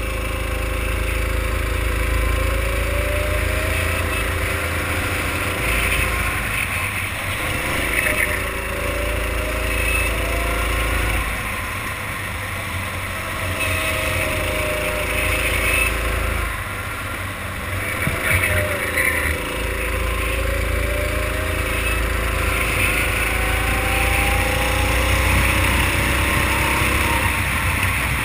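Go-kart engine heard from the kart itself at racing speed. Its pitch climbs steadily for several seconds and then drops sharply, about four times over, as it accelerates along the straights and slows for the corners, with a low wind rumble on the microphone.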